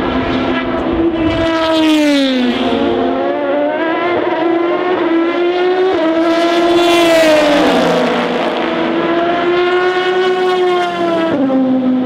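Rebellion R-One LMP1 prototype's Toyota V8 at racing speed, heard in several passes: the engine note drops sharply as the car goes by or brakes, then climbs steadily as it accelerates away, with sudden jumps in pitch about six and eleven seconds in.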